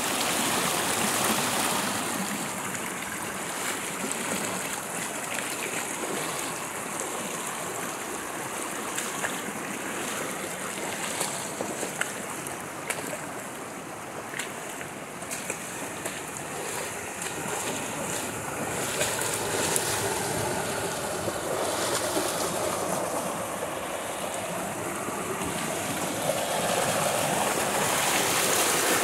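Rushing water of a mountain stream, a steady noise with scattered small clicks through the middle.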